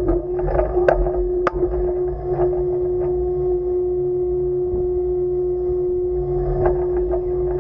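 A steady machinery hum holding one mid-pitched tone over a low wind rumble on a warship's deck, with two faint sharp clicks about a second in.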